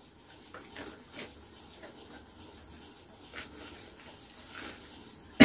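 Quiet rubbing, scraping and rustling of packaging being handled as a product box is drawn out, with a few light taps. A single sharp knock comes right at the end.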